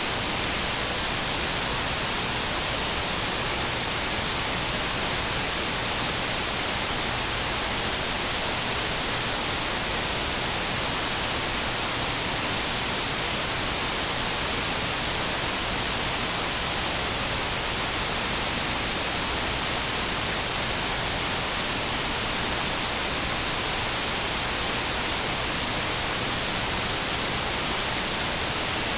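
Steady, unchanging static hiss, strongest in the high frequencies, with no speech or other sounds.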